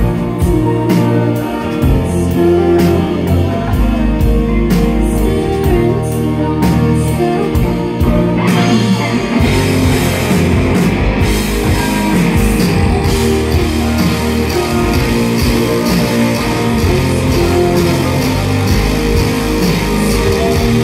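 Live indie rock band playing: electric guitar, electric bass and drum kit keep a steady beat. About eight seconds in, the music gets fuller and brighter.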